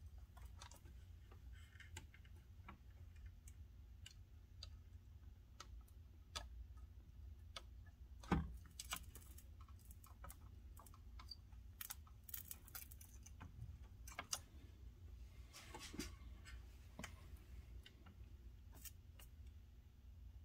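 Faint, scattered clicks and light scratchy scraping from a soldering iron tip and copper solder wick worked against a circuit board's solder joints while desoldering, with one sharper click about eight seconds in, over a low steady hum.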